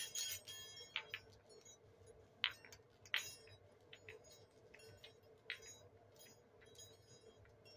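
Small hand-held chimes struck lightly for an energy-cleansing ritual: scattered bright tinkles, about half a dozen separate strikes, each ringing briefly.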